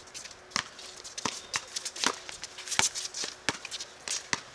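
Basketball game sounds: a ball bouncing and footsteps on the court, heard as irregular sharp knocks about every half second.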